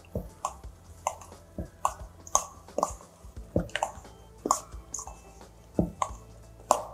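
Spoon stirring a penne pasta salad in a stainless steel mixing bowl: short, irregular wet squishing strokes, about two a second.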